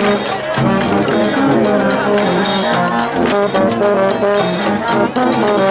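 Brass band (fanfare) playing a tune, with several horns sounding short notes together.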